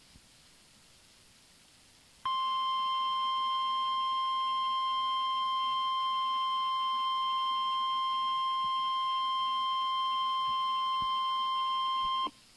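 NOAA Weather Radio 1050 Hz warning alarm tone: one steady high-pitched tone that starts suddenly about two seconds in, holds for about ten seconds, then cuts off. The tone signals that a warning message follows.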